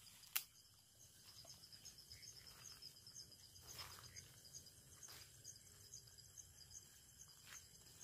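Faint insect chirping, an even pulse of about four high chirps a second, with one sharp click about half a second in and a few softer clicks later.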